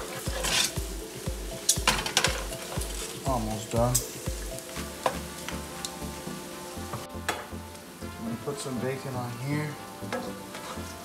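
Chopped bacon sizzling and frying in bubbling fat in a nonstick pan, stirred with a spoon that clicks and scrapes against the pan now and then.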